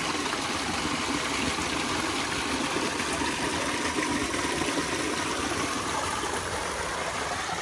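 Stream water rushing, a steady even wash with no breaks.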